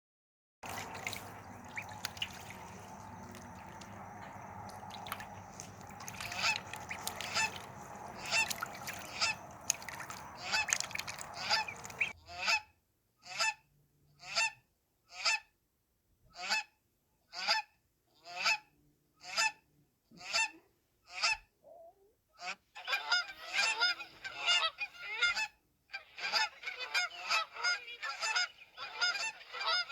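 Geese honking repeatedly. For the first twelve seconds the honks sit over a steady low background noise; then come single honks about one a second, and near the end many honks overlap as several birds call at once.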